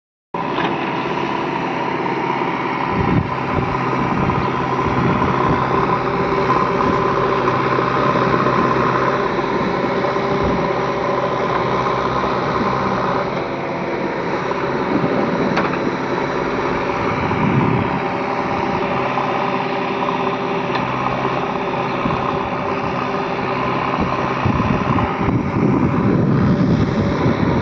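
JCB 3DX backhoe loader's diesel engine running steadily as it digs and loads soil, its note swelling a little at times, with a few short knocks.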